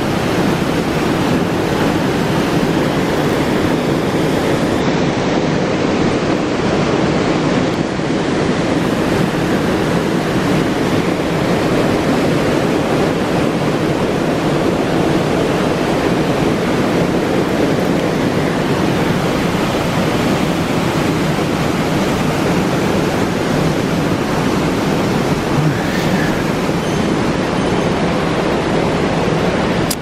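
Small mountain-stream waterfall pouring into a rocky plunge pool, with the stream rushing over rocks: a steady, loud, unbroken rush of water.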